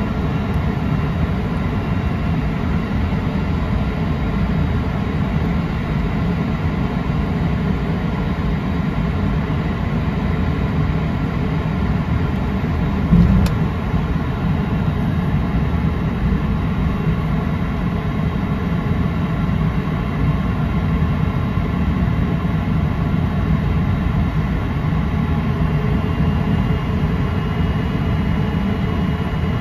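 Cessna Citation XLS twin turbofan jet engines heard inside the cabin at taxi power: a steady low rumble with several high steady whining tones. One short thump about 13 seconds in.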